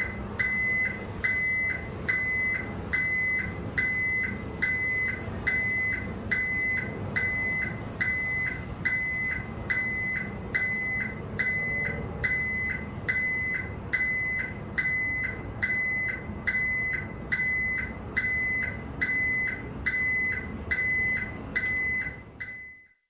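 A truck's back-up alarm beeping steadily in reverse, one high beep about every 0.8 s, over the low running of the truck's engine. It fades out near the end.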